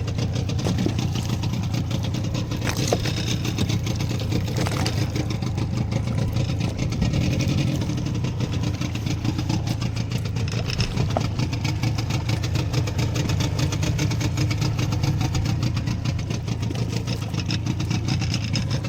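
Fishing boat's engine running steadily at a low, even throttle, a constant hum with fine rapid ticking.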